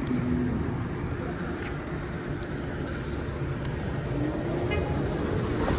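Steady road and wind noise from a moving electric kick scooter, with city traffic around it. A faint rising whine comes in about four seconds in.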